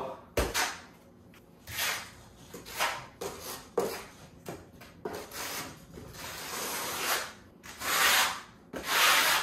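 Square-notch steel trowel scraping modified thinset mortar across a shower base in a series of separate strokes. The longest and loudest strokes come near the end, and there is one sharp knock just after the start.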